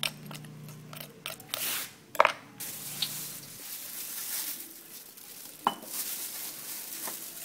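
A knife scraping and knocking inside a silver carp's belly cavity as the black membrane is scraped out, with one sharp knock about two seconds in. After that, a steady hiss with two sharp clicks near the end.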